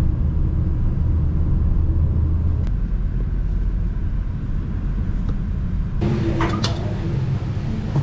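A car driving, a steady low rumble of engine and road noise that drops lower about three seconds in. A few clicks and a higher hum come in near the end.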